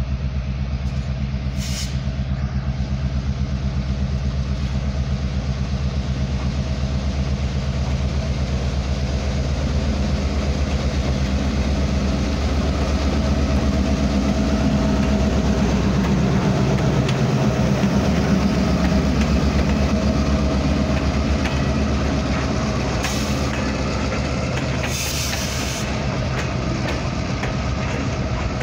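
A lone diesel-electric freight locomotive's engine running steadily as it approaches and passes close by, loudest about halfway through. The following freight cars start rolling past near the end.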